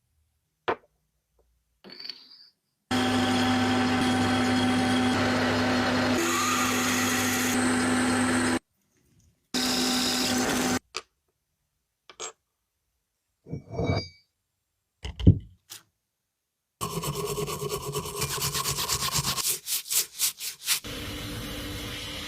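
Short snatches of machine and tool noise, cut apart by dead silence. One machine runs steadily with a hum for about six seconds, then come scattered knocks and scrapes, then a quick run of clicks near the end.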